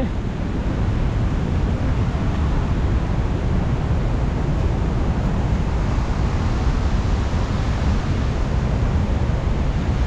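Steady rushing roar of a large waterfall in full monsoon flow, with wind buffeting the microphone and adding an uneven low rumble.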